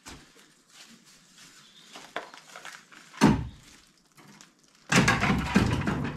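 A single heavy thump about three seconds in, then about a second of loud clattering and rustling near the end: objects being moved or dropped among debris.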